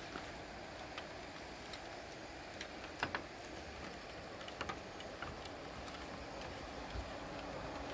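Faint outdoor background hiss with scattered, irregular light clicks and ticks, the sharpest about three seconds in.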